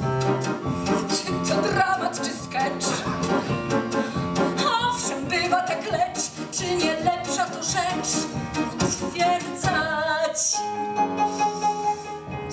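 A woman singing a cabaret song with instrumental accompaniment, her voice wavering in vibrato on long notes. Near the end the voice drops out and the accompaniment holds steady notes.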